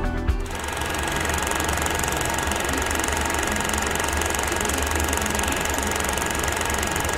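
Film projector running: a steady, rapid mechanical clatter with a thin steady whine, starting as music ends about half a second in.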